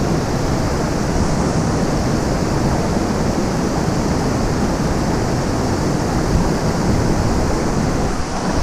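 Steady rush of a small waterfall pouring into a river pool, with a low rumble of wind on the microphone.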